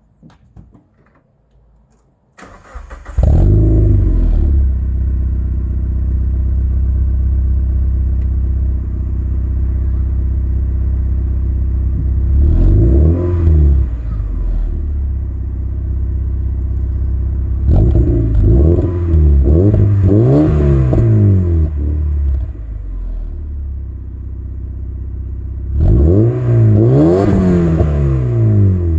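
Mazda Miata NBFL four-cylinder engine with a 4-2-1 header, 200-cell catalytic converter and Borla silencer, started about two seconds in, then idling with repeated free revs that rise and fall quickly: a single blip, a quick run of several, and a final pair. The exhaust has a gruntier note without being loud.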